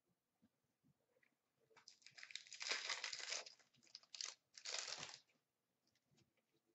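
Upper Deck hockey card pack wrapper crinkling and tearing as the pack is opened, in three bursts starting about two seconds in.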